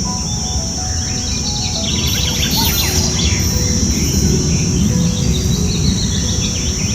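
Rainforest ambience: many birds chirping and calling over a steady, high-pitched insect drone, with a low rumble underneath.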